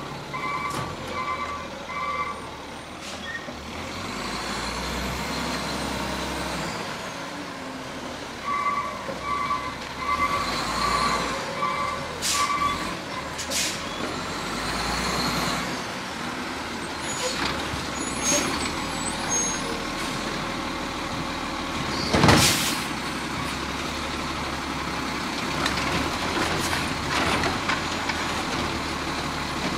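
WM automated side-loader garbage truck running, its diesel engine rising and falling while the hydraulic side arm works, with its reversing alarm beeping about twice a second near the start and again about a third of the way in. A short air-brake hiss sounds briefly, and a single loud bang about three-quarters of the way through is the loudest sound.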